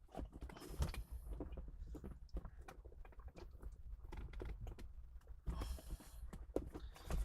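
Hands working the plastic center-console trim and the cigarette lighter's wiring connector in a third-generation Mitsubishi Eclipse: a run of small plastic clicks, taps and rattles, with a brief rustle about two-thirds of the way in.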